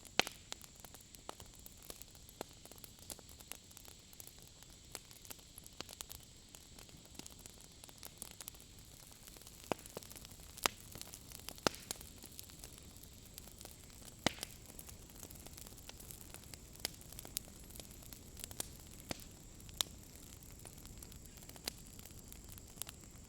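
Wood campfire crackling: irregular sharp pops and snaps over a steady soft hiss.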